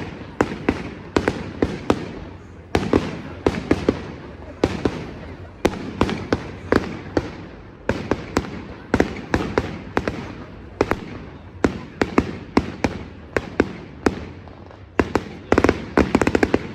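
Fireworks display: aerial shells bursting in a stream of sharp bangs at irregular intervals, each trailing off in an echo, building to a rapid run of bangs near the end.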